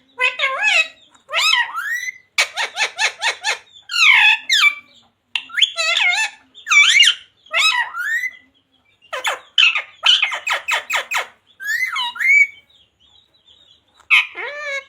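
Pet parrot calling and squawking in quick gliding calls, with two rapid runs of short repeated notes, falling briefly quiet near the end.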